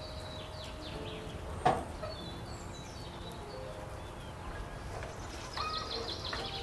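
Small birds chirping, busier near the end, with one sharp metallic clank a little under two seconds in as the sheet-metal door of a barrel wood-burning stove is opened.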